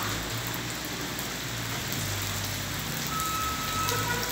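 Steady rain falling on a cobbled street and a tiled porch. About three seconds in, a vehicle's reversing alarm starts sounding a steady high beep.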